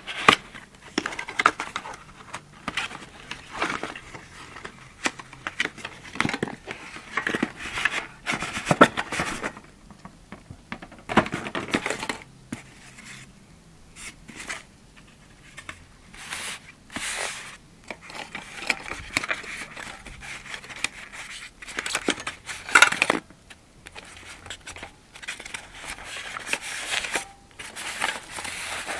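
Packaging of a helping-hand magnifier kit being torn and opened by hand: irregular tearing, crinkling and handling knocks.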